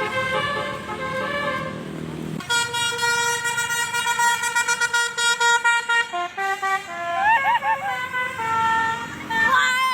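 Basuri multi-tone telolet horn on an odong-odong. From about two and a half seconds in it sounds a chord in quick pulses, then plays a short tune of notes that bend up and down.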